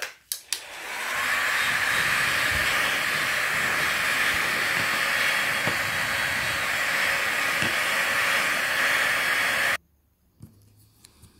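Hot-air blower running with a steady hiss, starting after a few handling clicks and cutting off suddenly near the end. It is heating the phone's frame to soften the adhesive holding the LCD.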